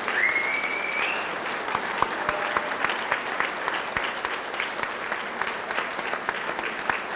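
Audience applauding, dense steady clapping. Near the start a single high tone rises over about a second.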